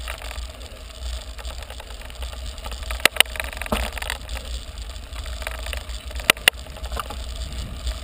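Mountain bike rolling along a gravel road, giving a steady low rumble, with two pairs of sharp knocks from the bike, about three seconds in and again past six seconds.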